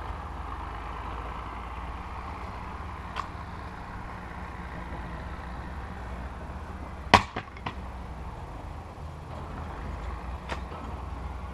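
A Cyclone 2.5 kg splitting maul swung down onto a log, one sharp wood-splitting crack about seven seconds in, followed quickly by two lighter knocks. A few faint knocks of wood on wood come before and after.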